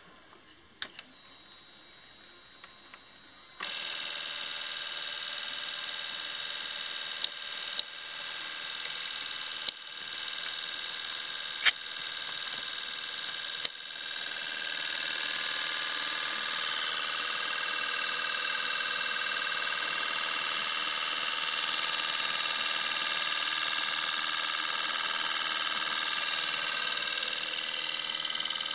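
Fuel injector test bench switched on about three and a half seconds in: a steady high hiss and buzz as four injectors pulse and spray test fluid at a simulated 850 rpm idle, 3% duty cycle. A few sharp clicks come over it, and it grows louder about fourteen seconds in.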